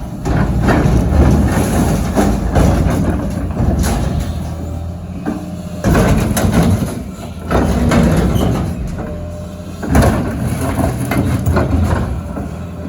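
Excavator's heavy diesel engine running under load, with loud metal crunching and banging several times as steel dumpsters are crushed.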